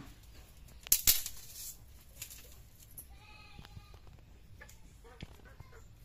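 Dry bamboo sticks clattering as they are pulled down from a rack, with a sharp loud rattle about a second in and a few lighter knocks after. A short animal bleat sounds about three seconds in.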